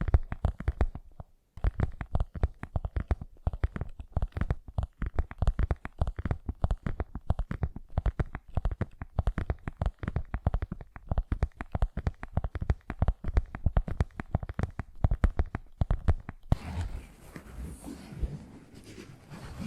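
Rapid fingertip tapping close to the microphone, several soft taps a second with a short break about a second in. Near the end the tapping gives way to continuous fingertip scratching.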